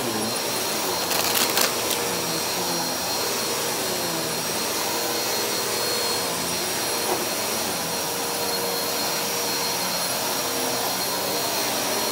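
Upright vacuum cleaner running steadily, a continuous motor hum and whine with a few brief clicks about a second in.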